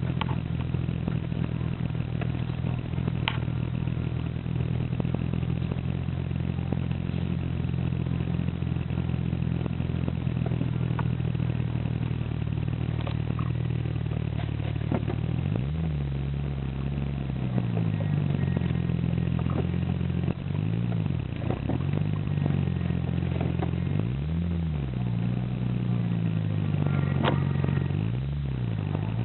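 Car cabin while driving: a steady engine and road drone that, from about halfway, rises and falls in pitch as the car speeds up and slows. Scattered faint clicks ride over it: the abnormal noise from around the instrument cluster, which quickens with road speed.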